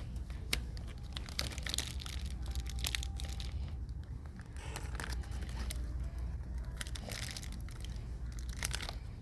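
Irregular crinkling and rustling of handled plastic and cardboard medicine packaging, with small clicks and knocks, over a steady low rumble.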